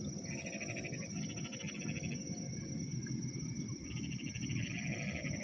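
Insects trilling, crickets among them: one high steady chirring throughout, and a lower trill that starts, stops about two seconds in, and returns near the end. A low irregular rumble runs underneath.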